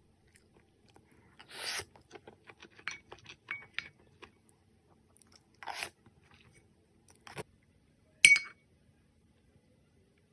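Someone eating kimchi fried rice: a few short scrapes of a utensil on the dish and small chewing clicks, then one sharp ringing clink of the utensil against the dish about eight seconds in.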